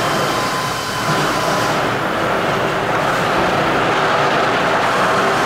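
Steady, loud mechanical noise of a workshop, a continuous even rush with no distinct strokes and a brief dip about a second in.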